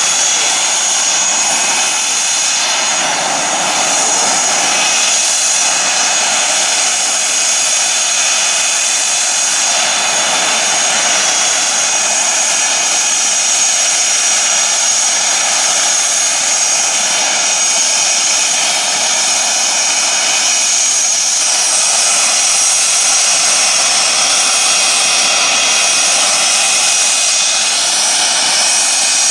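McDonnell Douglas CF-18 Hornet's twin General Electric F404 turbofans running at low taxi power. A steady, high-pitched jet whine sits over a loud rushing exhaust noise.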